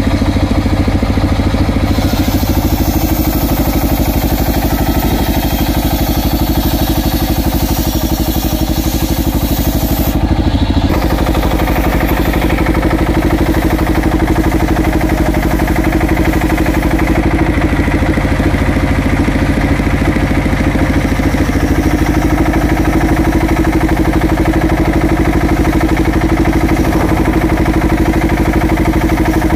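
Homemade belt-driven table circular saw with a large blade ripping acacia timber, over the steady running of the engine that drives it. The cutting sound shifts a few times as the timber is pushed through the blade.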